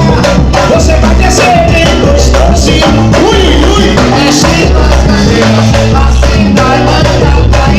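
Pagode samba music with a steady beat, deep bass and shaker percussion.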